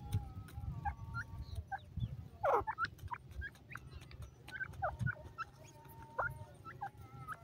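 Grey francolins giving many short, soft chirps, with one louder call that slides steeply down in pitch about two and a half seconds in, over a low steady rumble.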